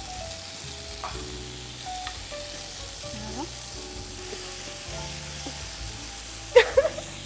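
Food sizzling steadily in a hot frying pan, with a sharp metallic clatter about six and a half seconds in.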